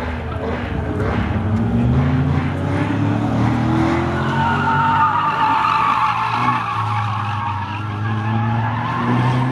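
Toyota MR2 drifting: the engine revs up, then the tyres squeal for several seconds as the car slides sideways through a turn, and the engine note comes back near the end.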